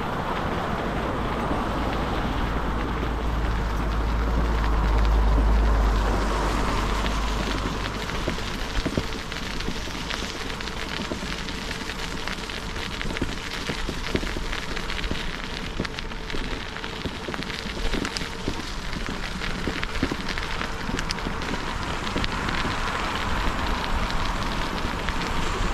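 Bicycle tyres rolling over a path spread with winter grit, a dense crackle of small pops, with wind rumbling on the microphone, strongest about five seconds in.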